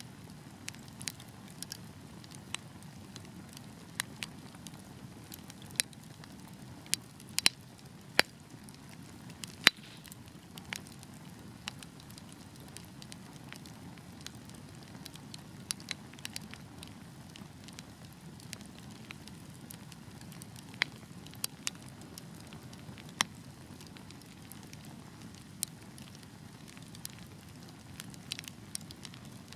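Wood fire burning in a fireplace: a soft steady low rush of flames with irregular sharp crackles and pops, a few every couple of seconds, several louder snaps about a third of the way in.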